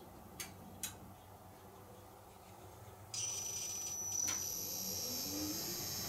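Two Daikin E-series outdoor units starting up. Two sharp clicks in the first second, then about three seconds in a steady high-pitched electronic whine switches on abruptly, with another click a second later. Near the end a low hum rises in pitch as the outdoor fan motors spin up.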